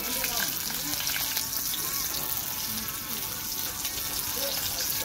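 Garlic cloves and sliced green chillies sizzling steadily in hot oil in a steel kadai.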